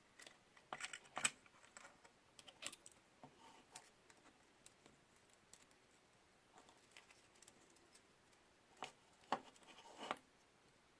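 Faint, irregular clicks and taps of small tools and parts being handled during a small electronics repair, with a cluster about a second in and another near the end.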